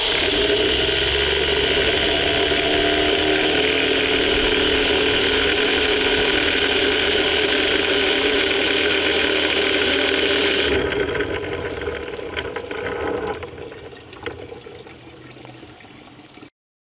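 A paint roller sleeve spinning at high speed in a hose-driven Roller Chamber cleaner: a steady hiss of spraying water over a whirring hum. About eleven seconds in the hiss stops abruptly and the whir winds down and fades away.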